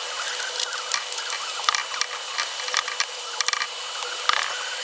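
A hot-air blower running with a steady hiss, with irregular clicks and scrapes as old glue is heated and picked off a scooter light housing.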